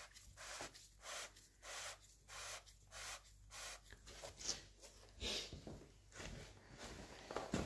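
Faint rhythmic rubbing, about two strokes a second: a gloved hand twisting the Sajo milling machine's leadscrew shaft back and forth, working it free.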